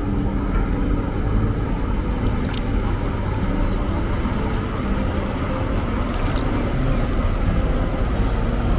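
High-speed catamaran passenger ferry passing close by, its engines running with a steady low drone over the churning of water in its wake.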